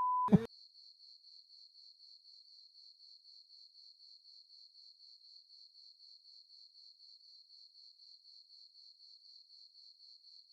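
A short steady beep, then faint high-pitched cricket chirping, pulsing evenly about four times a second and cutting off near the end.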